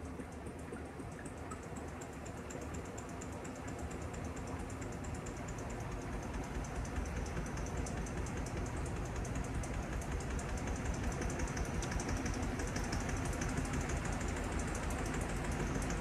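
Panasonic top-loading washing machine spinning its tub fast, likely in the spin cycle: a steady machine hum that grows louder as it speeds up, with a fast, dense ticking over it.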